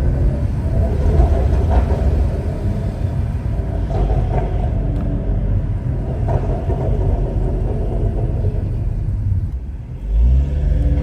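Stage 2 tuned BMW 540i with a custom exhaust running with a steady deep rumble. Near the end it briefly drops off, then gets louder as the revs rise.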